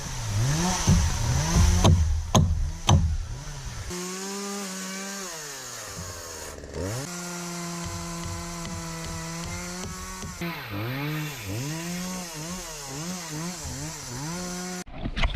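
Chainsaw engine running hard while cutting wood, its pitch dipping and recovering again and again as the chain bites. A few sharp knocks come in the first few seconds.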